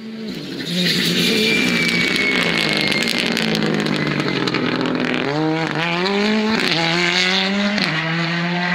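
Ford Fiesta rally car's turbocharged four-cylinder engine at full throttle through a bend. From about five seconds in it accelerates away, revs climbing in quick steps with three or four fast upshifts.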